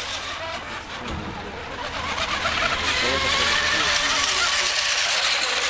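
Radio-controlled racing hydroplanes running flat out across the water: a high motor whine mixed with the hiss of hulls and spray, louder from about two seconds in.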